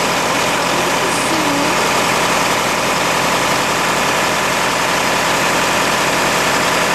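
John Deere 3020 tractor running steadily, driving a grain auger through its PTO as soybeans are augered up into a bin. The steady machine noise is loud.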